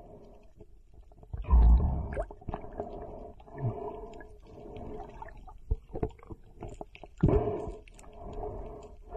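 Muffled underwater water movement heard through a camera's waterproof housing. It comes in swells every couple of seconds, with scattered sharp clicks and knocks.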